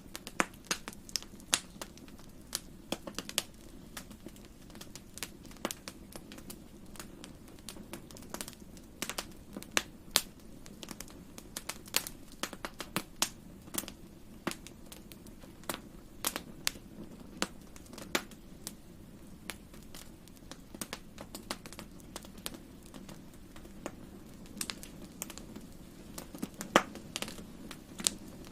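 Wood fire crackling in a fireplace: frequent irregular sharp pops and snaps over a low steady rumble of the burning.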